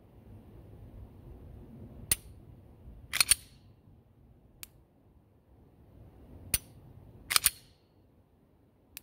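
Glock 19X pistol, cleared, dry-fired twice to feel its trigger reset. Each round is a sharp click of the trigger breaking, then a quick double metallic clack of the slide being worked, then a fainter reset click.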